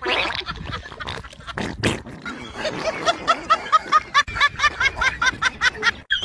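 High-pitched giggling laughter: a quick run of short squealing 'hee' sounds, about four a second, starting about two and a half seconds in.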